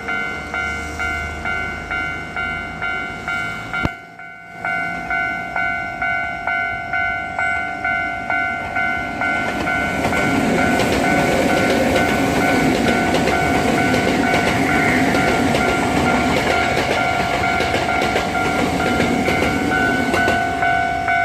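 Japanese level-crossing alarm ringing at about two strikes a second. From about halfway a Hankyu electric train runs over the crossing, its wheels clattering under the still-ringing bell.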